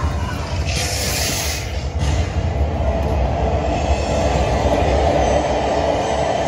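4D cinema film soundtrack playing over the theatre speakers: a loud, steady low rumble like a moving ride or train, with a hissing rush about a second in.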